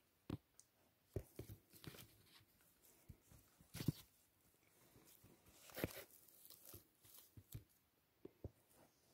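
Faint, scattered clicks, taps and rustles of hands working with small parts at a diesel engine block, with a sharper knock about four seconds in and a brief rustle near six seconds.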